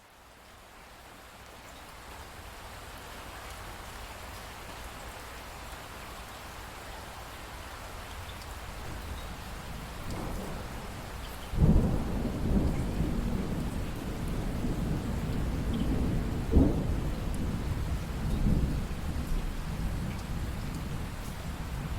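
Steady rain, swelling up at the start, then thunder breaking out about halfway through and rumbling on, with a sharper clap a few seconds later.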